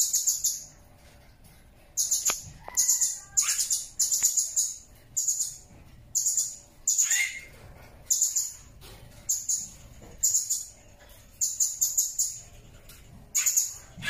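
Blue-crowned hanging parrot (serindit) calling: shrill, very high-pitched chirps in a rapid string of short bursts, many bursts made of several quick notes. A few calls slide downward in pitch.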